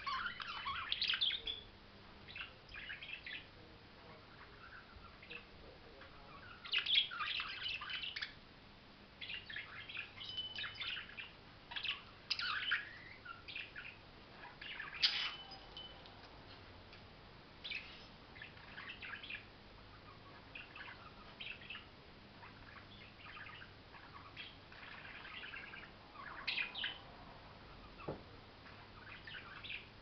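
Budgerigars chirping and chattering in short, irregular bursts of high twittering notes with brief pauses between.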